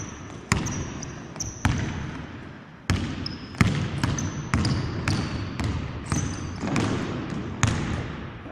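Basketball dribbled on a hardwood gym floor, bouncing about twice a second with each bounce echoing through the large, empty hall. Short high sneaker squeaks come between the bounces.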